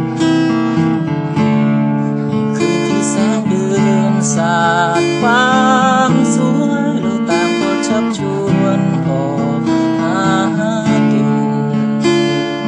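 Acoustic guitar strummed steadily, with a man singing. He holds wavering notes about four to six seconds in and again around ten seconds.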